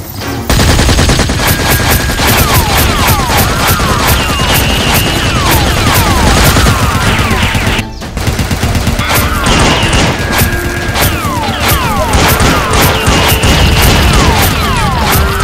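Rapid, continuous gunfire sound effects, like an automatic-weapon fusillade, laid over action music with repeating swooping synth tones. The firing breaks off briefly about eight seconds in and then resumes.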